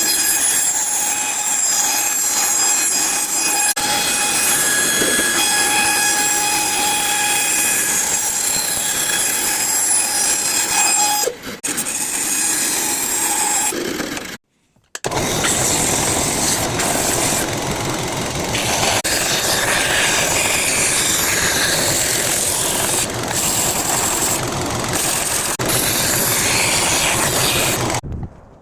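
Electric power tool motor running with a steady whine, dipping briefly about eleven seconds in. After a short stop about halfway it starts again and runs rougher and noisier until it stops near the end.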